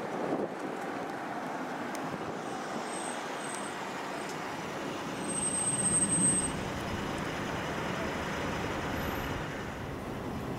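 Steady vehicle noise, swelling briefly about six seconds in, with a thin high squeal at the loudest moment.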